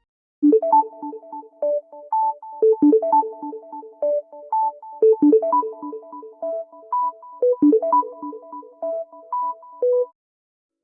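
A Samsung Galaxy A54 5G ringtone: a short synthesized melody of quick, clean-toned notes over a repeating lower accompaniment. It starts about half a second in and stops shortly before the end.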